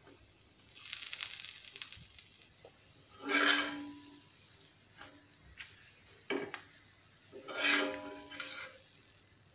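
Utensils working on a hot dosa griddle. A steel spoon scratches as it spreads powder over the dosa, then a flat metal spatula scrapes across the griddle twice with a brief metallic ring as it lifts and folds the dosa, with a few light clicks in between.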